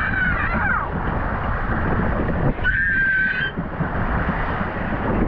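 Water rushing and wind buffeting the microphone during a family raft ride down a water slide. High-pitched squeals from riders come once right at the start and again, briefly, about halfway through.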